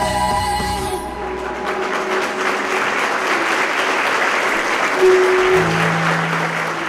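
Recorded song ends about a second in, and an audience applauds for the rest. A short steady tone stands out about five seconds in.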